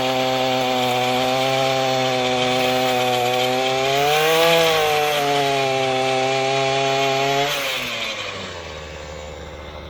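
Earthquake MC33 mini tiller's 33cc two-stroke engine running at high revs as its tines work into grass sod, the pitch swelling briefly about four seconds in. Near the end the engine falls away to a low idle.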